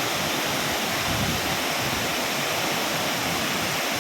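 Kuang Si waterfall's falling water: a steady, even rush of noise with no change.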